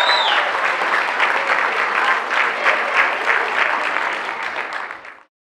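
Audience applauding: many people clapping at once, the clapping cutting off suddenly near the end.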